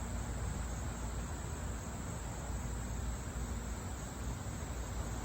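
Wind rumbling on the microphone outdoors, a steady low rumble under an even hiss.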